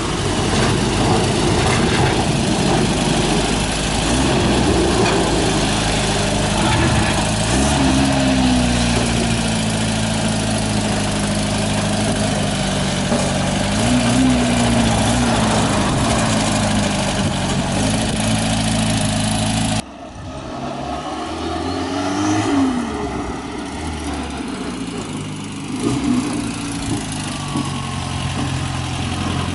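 Toyota Hilux's turbocharged 22R four-cylinder engine running at a low steady speed, with a few brief blips of the throttle that rise and fall in pitch. About two-thirds of the way through the sound cuts abruptly to a quieter take of the same engine, which gives one more short rev.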